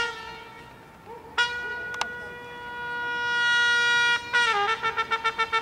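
Trumpet playing: a long held note fades out, a new note is held steadily from about a second and a half in, then it breaks into quick repeated tongued notes near the end.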